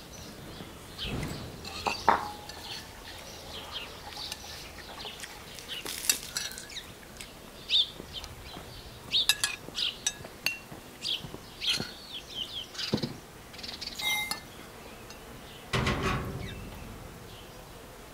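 Scattered light clinks of crockery and cutlery at a table, with a few soft knocks, while small birds chirp.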